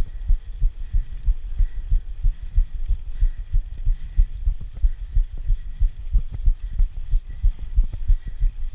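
Rapid, uneven low thumps and rumble, several a second, from the jolts of a mountain bike climbing a grooved concrete road, carried into the camera's microphone.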